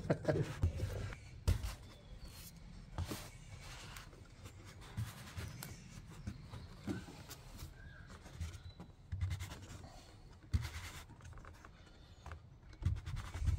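Hands working a plastic fuel-tank sender unit and its rubber seal back into the tank opening: irregular clicks, knocks and scrapes of plastic on plastic, the sharpest knocks about one and a half, three and ten and a half seconds in.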